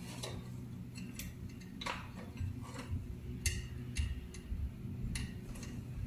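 Faint, irregular clicks and taps of wire connectors being handled and pushed onto the terminal pins of a refrigerator's hermetic compressor, about nine in all.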